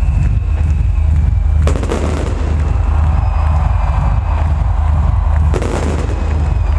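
Stage fireworks bang twice, about two seconds in and again near the end, each followed by crackling, over loud electronic dance music with a steady bass beat.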